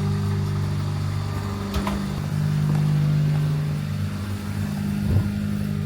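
Car engine running steadily, heard from inside the car as a low hum, with a few light clicks and knocks.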